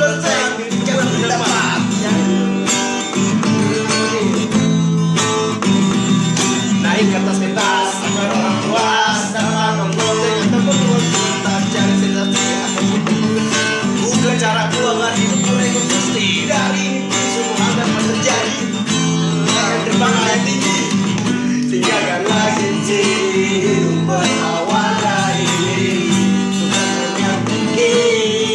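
Background music: an instrumental stretch of a pop song, guitar over a steady, repeating bass line.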